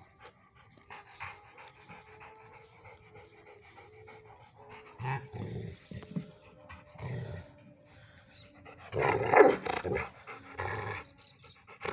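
Rottweiler panting as it plays with an old tyre, with louder bursts of sound about nine seconds in and again near the end.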